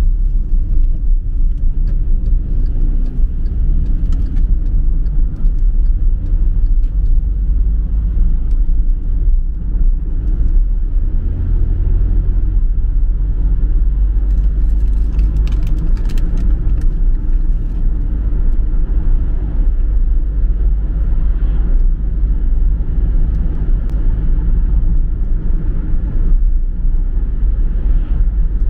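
Car driving along a road: steady low rumble of engine and tyre noise, with a few faint clicks about halfway through.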